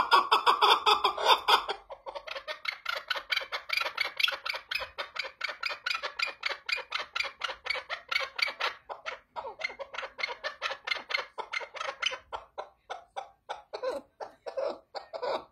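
Chukar partridge calling: a rapid, unbroken run of short clucking notes, about seven a second, loud for the first two seconds and then going on more quietly.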